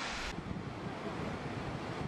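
Rushing hiss of high-pressure discharge jets from a dam's outlets, cut off sharply a fraction of a second in, giving way to a low rumble of water falling from a dam outlet with wind buffeting the microphone.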